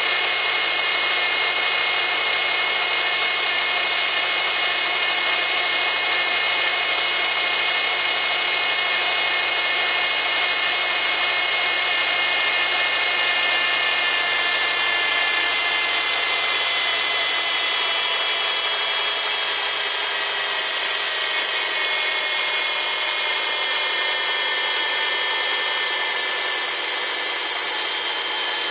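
Subaru EJ25 flat-four engine running at a steady speed, with a busy high-pitched mechanical whine and hiss. Its pitch sinks slowly through the second half, as the revs settle lower.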